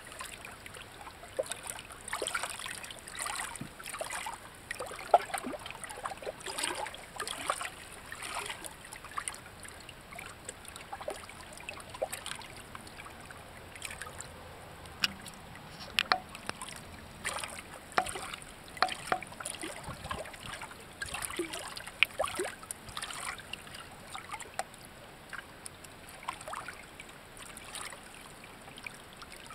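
Shallow water trickling and lapping among rocks, made of many small, irregular splashes and drips.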